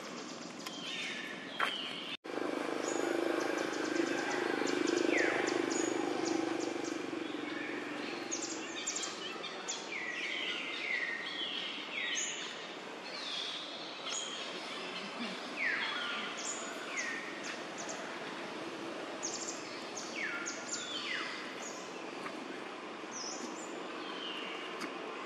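Repeated short, high animal calls, each sliding down in pitch, coming every second or so. A low steady hum runs underneath for the first several seconds.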